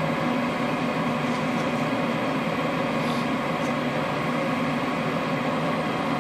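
Two-stage propane furnace running steadily in low stage: the hum of the inducer draft motor with the rush of the lit burners, as it waits to step up to high stage.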